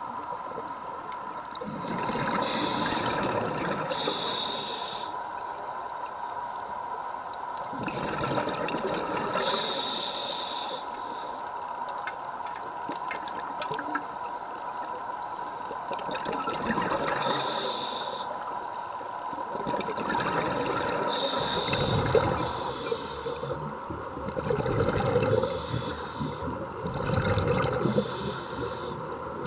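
A scuba diver breathing through a regulator underwater: a short hissing inhalation every few seconds, each followed by a longer bubbling exhalation, over a faint steady tone.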